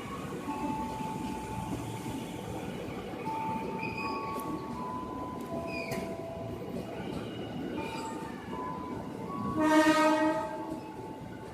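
Ex-JR 205 series electric commuter train pulling into a station: steady running noise with level whining tones and a couple of brief squeals. About ten seconds in, a short train horn blast sounds, the loudest sound.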